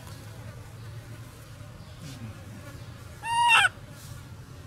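A baby macaque gives one short, high-pitched cry about three seconds in, its pitch arching up and down, over a steady low hum.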